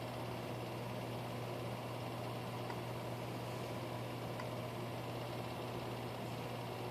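Steady low hum with even background hiss and no change in level: room tone from a fan or similar machine.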